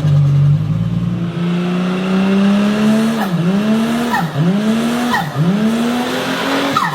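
Turbocharged car engine running and climbing in revs, then the throttle is lifted and reapplied three times, each lift drawing a short chirp of turbo flutter. Near the end comes a loud rush of air and a falling whoosh as the throttle closes.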